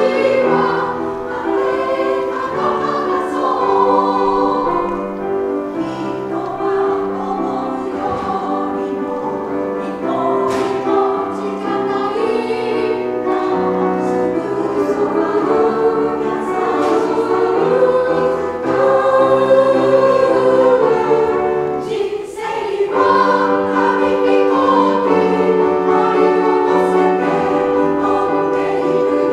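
Women's choir of about a dozen voices singing a Japanese song in parts, with piano accompaniment. The voices break off briefly for a breath about 22 seconds in.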